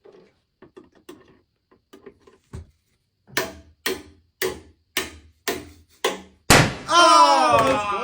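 Toy hammer knocking pegs down into a plastic Wack-A-Balloon game box: light taps, then six firm knocks about two a second. Near the end a loud sudden hit as the game's pop-up is triggered, followed by a long cry falling in pitch.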